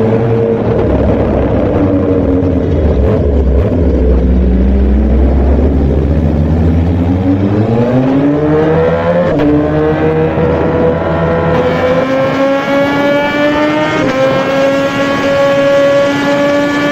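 Suzuki GSX-R1000 superbike's inline-four engine: the note sags a little, climbs steeply about halfway through as it accelerates, then holds at a high, nearly steady pitch.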